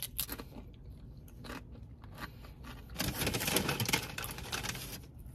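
Tortilla chips being bitten and chewed: small scattered crunches at first, then a denser run of crunching that lasts about two seconds past the middle.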